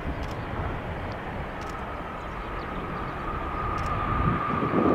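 Jet airliner engines: a steady rumble, with a high whine coming in about one and a half seconds in and the sound growing louder toward the end.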